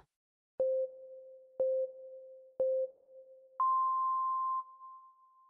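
Countdown timer beeps: three short, lower beeps a second apart, then one longer, higher beep that marks the 'go'.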